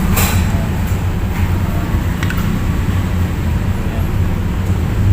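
Steady low rumble of background traffic or machinery, with a couple of light clicks, one near the start and one about two seconds in.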